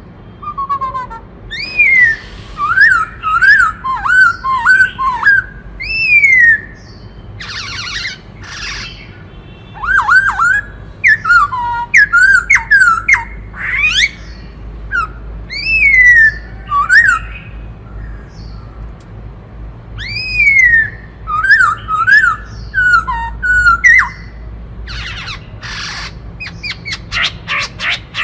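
Black-throated laughingthrush singing: loud whistled phrases of rising and falling notes, broken now and then by harsh rasping calls.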